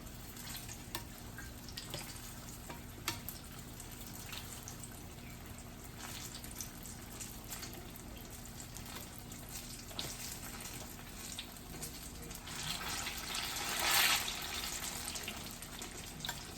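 Turon, plantain banana rolls with jackfruit in wrappers, frying in oil over a medium fire: a steady sizzle with scattered crackles, swelling louder for about two seconds near the end.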